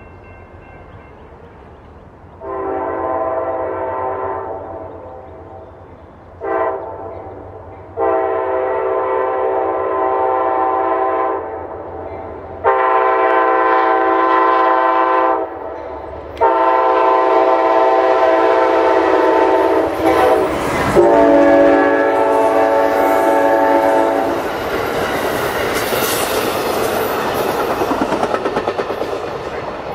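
Amtrak GE Genesis P42DC locomotive 187 sounding its air horn for a grade crossing: a series of chord blasts, mostly long with one short one, the last held about eight seconds. Then the passenger cars' wheels clatter steadily over the rails as the train passes.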